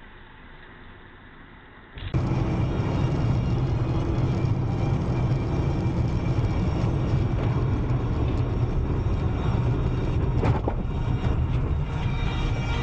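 Dashcam recording of a car driving on a highway: steady road and engine noise heard from inside the cabin, faint at first and much louder after a cut about two seconds in. A short click about ten and a half seconds in.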